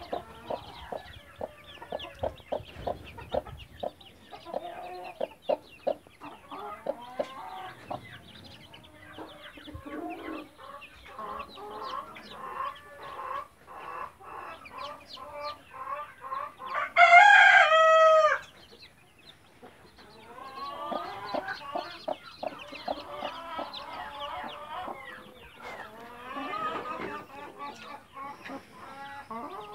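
Chicks peeping continuously while a mother hen clucks among them. Just past the middle a rooster crows once, loud and drawn out for about a second and a half.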